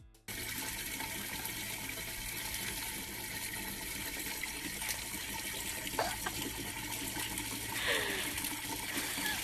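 Water running from an outdoor wall tap and splashing below in a steady rush. A short falling sound rises briefly over it near the end.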